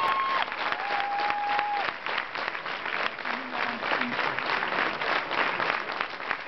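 Audience applauding steadily, with a short held whistle about a second in.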